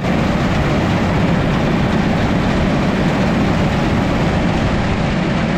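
Big self-propelled harvest machine running steadily: a loud engine hum under a dense mechanical rattle.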